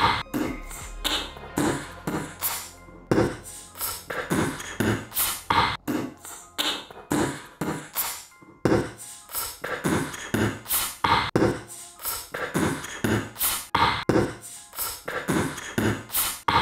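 Music soundtrack: a beatboxing-style percussion beat, about two strokes a second, with no vocals over it. The beat stops right at the end and trails off.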